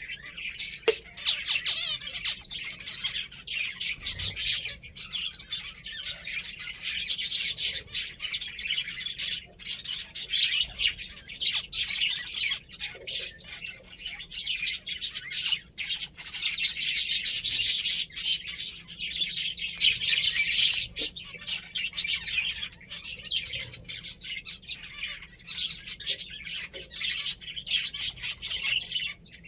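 Pet finches chirping constantly, many quick high calls overlapping, with louder spells of chatter about a quarter of the way in and again a little past halfway.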